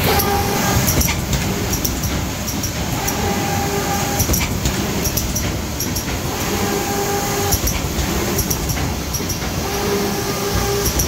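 Automatic visual-positioning box case making machine running: a steady mechanical rumble with rapid clicks and clatter from its moving parts, and a short steady tone sounding for about a second every few seconds.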